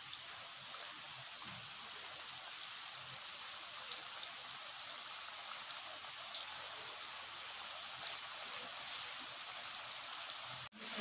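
Spring rolls deep-frying in hot oil: a steady sizzling hiss with scattered small crackles and pops, breaking off briefly near the end.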